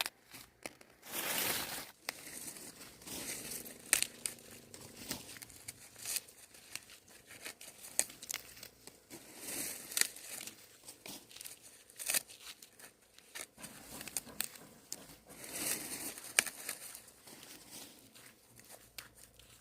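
Dry corn leaves and husks rustling and crackling in irregular bursts, with sharp snaps, as ears of corn are picked and handled by hand.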